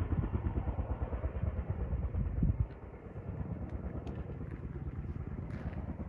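Helicopter rotor beating with a rapid low chop, louder for about the first two and a half seconds and then dropping off somewhat.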